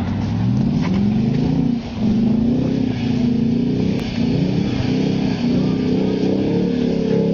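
Audi S4's 4.2-litre V8 revving hard as the car is drifted on snow, the revs climbing and falling again and again, with a brief lift of the throttle just before two seconds in.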